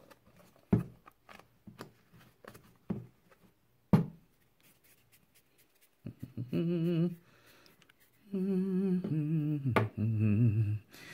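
A few sharp taps and knocks from hands handling things on a wooden workbench while rolling plumber's putty. Then, from about six seconds in, a man humming a tune in held notes that step down in pitch.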